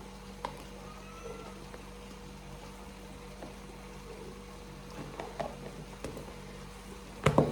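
A few light knocks and clinks of a spoon against the cooking pot while spices are being added, with a sharper knock near the end, over a steady low hum.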